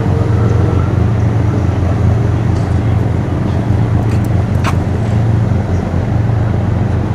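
Steady low engine rumble at an even level, with a brief click about two-thirds of the way through.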